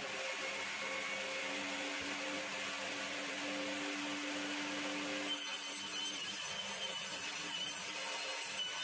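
Table saw running with a steady motor whine, ripping a thin strip of wood fed with a push stick in the first few seconds, then spinning free between cuts.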